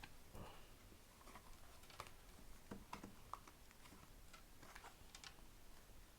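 Faint, irregular light taps and clicks of hands handling speed cube packaging during unboxing.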